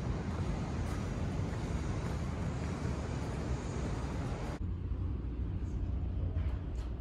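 Rooftop city ambience high above the street: steady wind noise with distant city traffic. About four and a half seconds in it cuts off abruptly to a quieter low indoor rumble.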